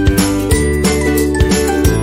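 Background music: a light melody of held tones over a steady beat of about two strokes a second.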